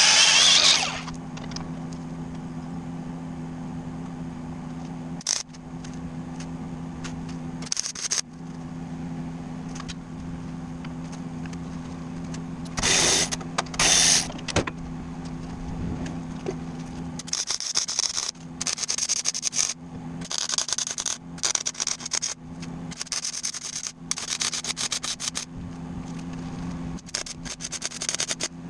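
Cordless angle grinder spinning down about a second in. Later, from a little past halfway, a welding arc crackles in many short, irregular stitches, stopping and starting, over a steady low hum.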